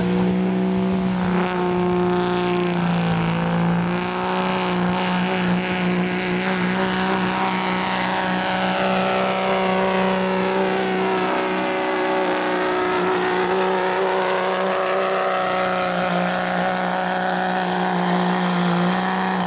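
2004 Dodge Ram's 5.9 L Cummins turbo-diesel pulling a weight-transfer sled under full load, held at a steady high engine note through the pull. A high whine climbs steeply in pitch over the first few seconds as the truck launches. The sound drops away abruptly at the end.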